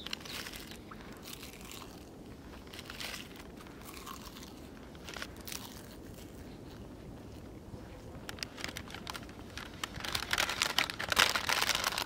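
Crisp crunching and crinkling of roasted seaweed (kim) being eaten and its packet handled: scattered crackles, then a dense, louder run of crinkling near the end.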